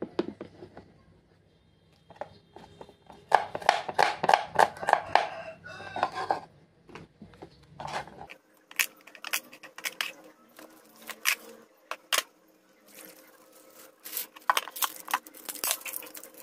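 Kitchen handling noises: a plastic bag crinkling and rustling, with many sharp clicks and knocks on the wooden cutting board.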